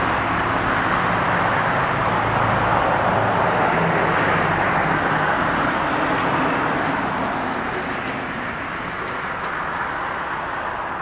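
Twin GE90-115B turbofans of a Boeing 777-300ER at takeoff thrust during the takeoff roll, a loud, steady jet noise that fades over the last few seconds as the airliner draws away down the runway.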